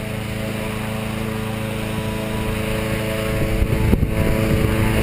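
Petrol-engined balloon inflator fan running steadily, blowing air into a hot air balloon envelope and heard from inside it. The envelope fabric flaps and rustles from about three and a half seconds in.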